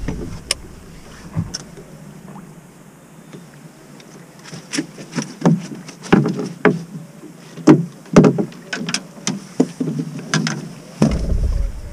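Irregular knocks and clunks of gear being handled in an aluminium fishing boat, sharp and scattered over the second half, with a low rumble of wind on the microphone near the end.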